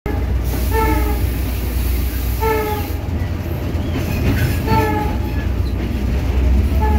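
EMD 8-645 diesel engine of an EMD GL18B locomotive running under way, heard from inside the cab as a heavy steady rumble. A short high tone sounds about every two seconds over it, and a high hiss is present for the first few seconds.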